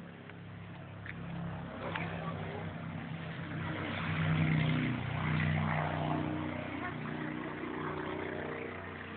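A vehicle engine running, growing louder over the first four seconds or so and then holding steady.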